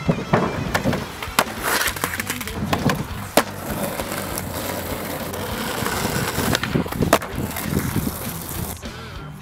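Skateboard wheels rolling on rough asphalt, broken by several sharp clacks of the board popping and landing.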